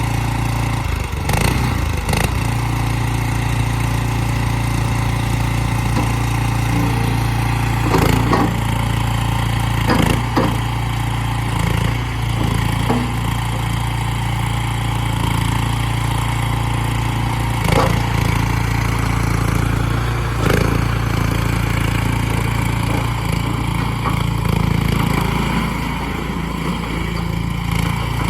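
Future FT36C mini skid steer loader's engine running steadily, with several sharp clanks and knocks from the machine as it is worked. Its note climbs somewhat over the last few seconds.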